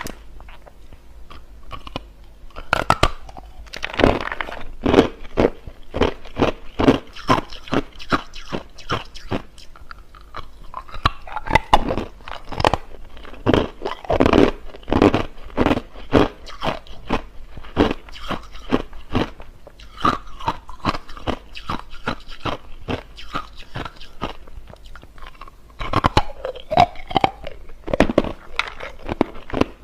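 A person biting and chewing hard, clear crushed ice close to the microphone: loud, sharp crunches come a few times a second, with short pauses between bouts.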